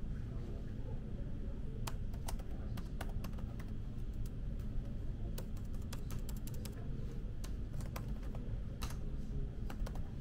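Typing on a laptop keyboard: irregular quick key clicks, beginning about two seconds in and coming in short runs, over a steady low hum.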